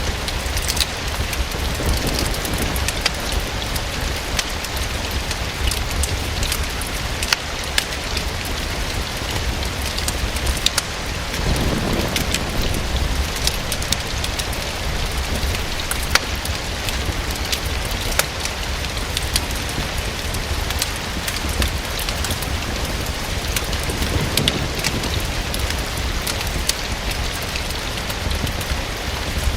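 Steady rain pattering against a window, with scattered sharp crackles from a wood fire in a fireplace. A soft low rumble swells briefly near the middle.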